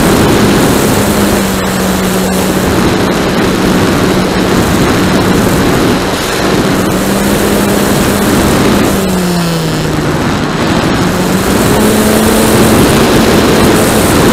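Motor and propeller of a radio-controlled Piper Cub model in flight, heard from its onboard camera: a steady droning tone under loud wind rush on the microphone. About nine seconds in, the pitch falls as the throttle is eased back, then rises again and holds a little higher near the end.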